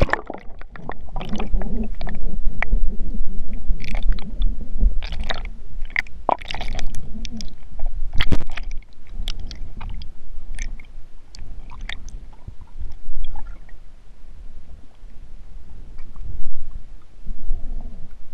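GoPro in a waterproof housing, fixed to a fishing magnet, knocking and scraping against a well's tube casing as it is lowered on a rope, heard muffled through the housing as a low rumble with many irregular knocks. The knocks come thickest in the first half and thin out after about 9 s.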